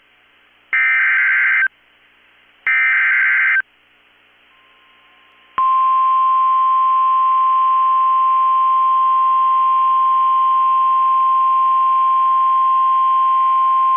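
NOAA Weather Radio SAME alert signal heard over a radio receiver. It opens with two loud, about one-second bursts of screeching digital header data. About five and a half seconds in, the steady 1050 Hz Warning Alarm Tone starts and holds, announcing a severe thunderstorm warning.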